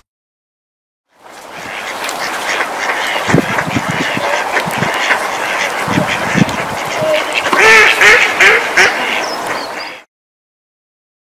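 Mallards quacking during a fight between drakes: a busy run of calls with scattered knocks, loudest about eight seconds in. It starts after about a second of silence and cuts off suddenly near the end.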